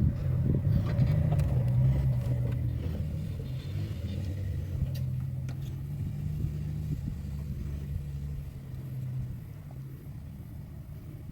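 Vehicle engine running with a low, steady rumble that slowly gets quieter.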